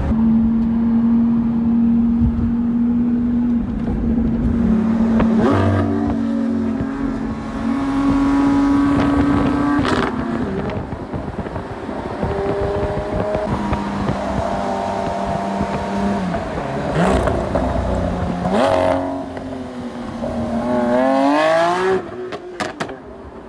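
Lamborghini Aventador SVJ's naturally aspirated V12 running at steady revs, its note stepping up and down through the gears. Several quick revs rise and fall, with a few sharp exhaust cracks between them.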